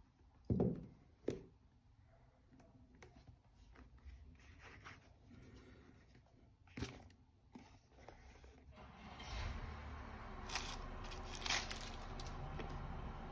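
A watch presentation box being handled and opened. There are two knocks in the first second or so, then scattered light taps and rubbing. From about nine seconds a steadier rustle and rumble sets in, with a couple of sharp clicks near the end.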